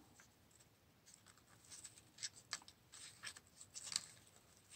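Faint, scattered scratches and crinkles of paper pieces being handled and pressed together by hand, mostly in the second half.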